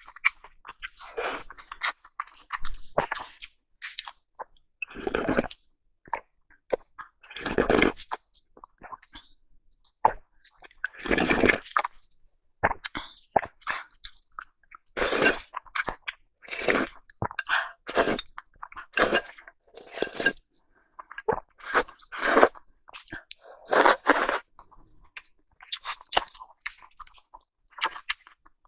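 Close-up eating sounds of salmon sushi being chewed: irregular wet mouth noises coming in uneven bursts with short pauses between them.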